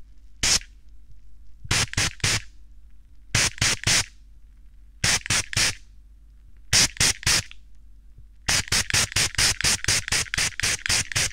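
Short hissing puffs of a trigger spray bottle sprayed close to the binaural microphone's ear. First comes one puff, then puffs in quick threes, and from about three-quarters of the way in a rapid run of about five a second.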